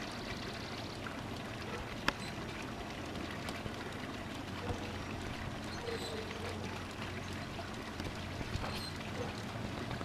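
G-scale model trains running on garden track: a steady rolling rumble with a low hum, a few faint ticks and one sharp click about two seconds in.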